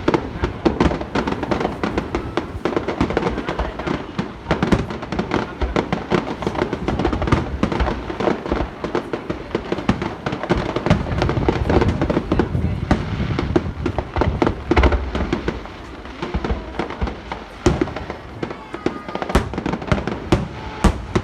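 Festival fireworks display at its finale: a dense, unbroken barrage of aerial shells bursting and crackling, with music playing underneath.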